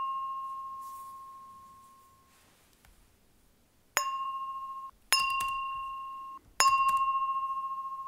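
Recordings of a champagne glass flicked with a finger, each ringing with one clear high tone that fades slowly. The ring of one strike fades out over the first two seconds. Three more strikes follow, at about four, five and six and a half seconds in; the first two cut off abruptly after about a second each, and the last keeps ringing.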